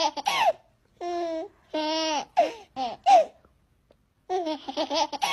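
A baby babbling and laughing in short bursts of voice, some held and some falling in pitch, with brief silent gaps between them.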